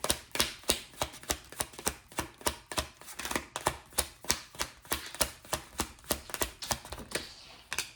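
A deck of tarot cards being shuffled by hand: a run of quick card slaps, about four a second, that stops shortly before the end.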